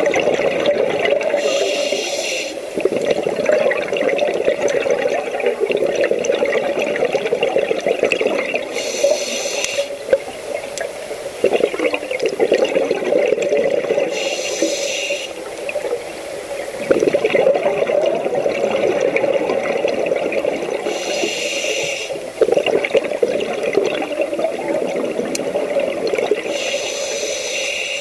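Scuba diver breathing through a regulator underwater: a short hiss on each inhale, then a long rush of exhaled bubbles, five breaths about six seconds apart.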